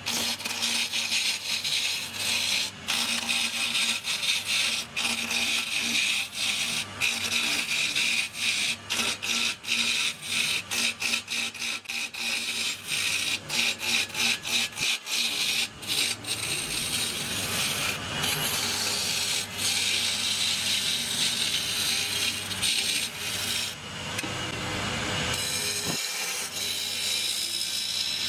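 Wood lathe running while a turning tool cuts the spinning wood: a scraping, hissing cut over a steady motor hum. The cut is broken by many short pauses in the middle stretch and runs more evenly near the end.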